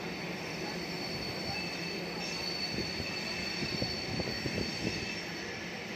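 Steel wheels of a moving passenger train squealing against the rails: a steady high-pitched squeal over the low rumble and irregular knocks of the running gear.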